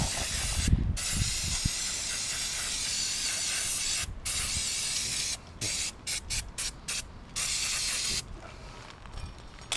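Aerosol spray can spraying onto an engine crankshaft. A long continuous hiss lasts about four seconds, breaks briefly, then runs on. After that come a run of short squirts and one last longer burst.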